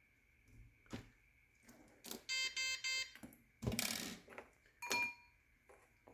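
RC car electronic speed controller beeping as it is powered up: a quick pair of short electronic beeps about two seconds in, a brief clatter a little before four seconds, then another short beep near five seconds.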